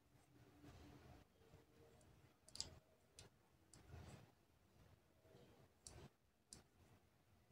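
Near silence, with a few faint, scattered clicks of a metal crochet hook against fingernails and yarn as crochet stitches are worked; the sharpest comes about two and a half seconds in.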